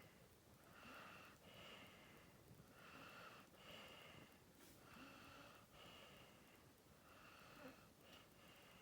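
Staffordshire bull terrier snoring softly: faint breaths about every two seconds, each drawn in and let out in two parts with a slight whistle.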